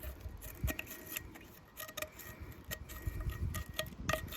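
Scattered light metallic clicks and clinks, some ringing briefly: hand tools and small metal engine parts being handled and knocked together during cleaning.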